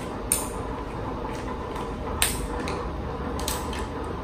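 Ladle clinking against a hot pot: about three sharp clinks, the loudest around two seconds in, over a steady background hiss.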